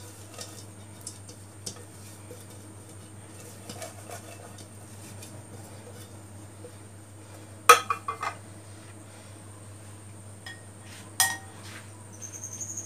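Round aluminium cake pan being greased with oil by a pastry brush, with faint brushing and small ticks against the metal. There are louder clanks of the pan about eight seconds in and again about eleven seconds in.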